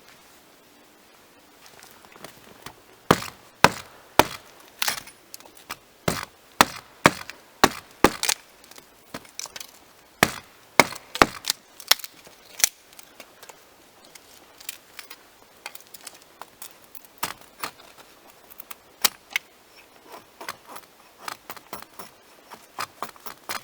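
Hultofors axe chopping wood: a run of sharp wooden strikes about two a second, then lighter, scattered knocks in the second half.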